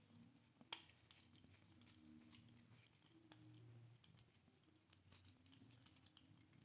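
Near silence with a few faint clicks of a screwdriver tightening a wire under the terminal screw of a wall light switch, the sharpest click about three-quarters of a second in.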